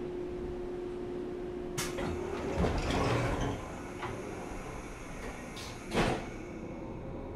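Pneumatic sliding doors of a JR West 475 series electric train car (KuMoHa 475-42) working over the car's steady hum: a click, a hiss of air about two and a half seconds in, then a loud thud near six seconds in.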